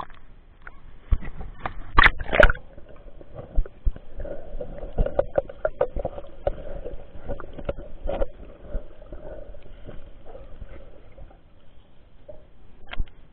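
Water sloshing and splashing around a waterproof camera at and below the surface, sounding muffled under water, with a string of sharp splashes and knocks. The loudest pair comes about two seconds in, and a faint steady drone runs through the middle.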